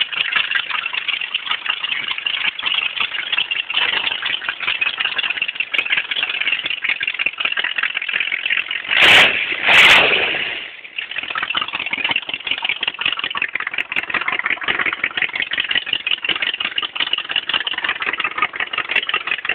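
Rat rod's engine idling through an exhaust fitted with 12-inch Harley baffles, the exhaust pulses coming fast and even. A little past halfway it revs twice in quick succession, the loudest moments, then settles back to idle.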